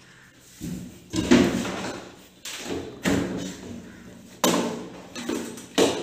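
Several hollow knocks and thuds from the washing machine's body and tub being handled, about seven or eight separate strikes, the loudest about a second and a half in.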